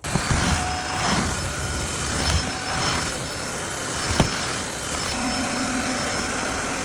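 Floor-cleaning vacuum motor running steadily with a faint high whine, as it sweeps the floor; a single knock about four seconds in.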